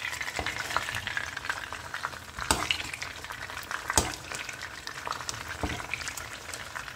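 Whole fish frying in shallow oil in a pan: a steady sizzle and crackle of hot oil, with a few sharp clicks as a metal spoon knocks the pan while oil is spooned over the fish, the loudest about two and a half and four seconds in.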